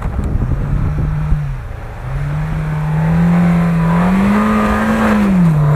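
Skoda Octavia Tour's engine revving under load while driving off-road, its pitch holding steady, rising about four seconds in and dipping near the end, over a rough low rumble.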